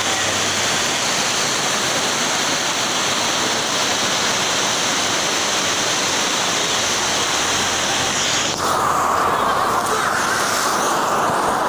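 Fast-flowing floodwater rushing down a flooded street in heavy rain, a loud, steady rush of water. About two-thirds of the way through the sound turns duller, losing its hiss.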